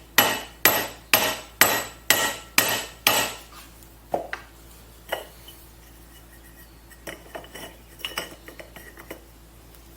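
Rubber mallet blows on a corroded Polaris jet ski pump, about two a second, seven ringing metallic strikes, to knock the stuck parts loose. Lighter metal clinks and rattles follow as parts are handled.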